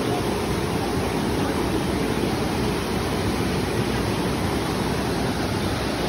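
Waterfall and its stream rushing, a loud, steady noise of falling water that is heaviest in the low range.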